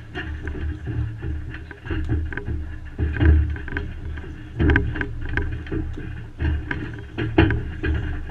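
Boxers' footwork and movement thudding on the ring floor, with several sharp slaps of gloves landing, the loudest about three, four and a half and seven and a half seconds in.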